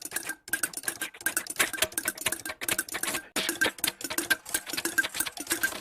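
Rapid, uneven mechanical clicking and clacking, several strikes a second, like typing or a typewriter, with a faint recurring high tone among the clicks.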